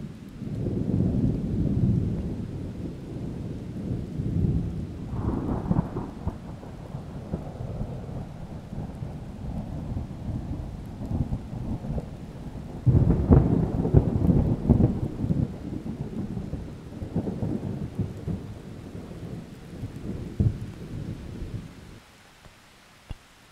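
Distant thunder rolling in long, low peals over steady rain, loudest about thirteen seconds in. The thunder dies away near the end, leaving a faint hiss.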